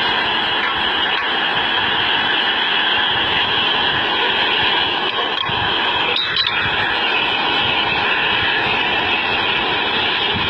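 Loud, steady mechanical noise of a large engine or heavy machinery running, with a brief sharper sound about six seconds in.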